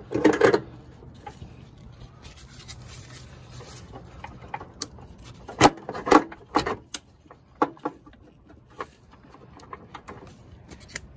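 Hands and tools working around the clutch line in a car's engine bay: scattered light clicks and knocks, with a few sharper knocks near the middle.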